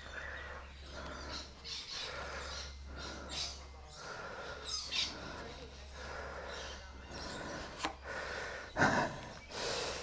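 Small birds chirping repeatedly in the background over a steady low hum, with a short breath about nine seconds in.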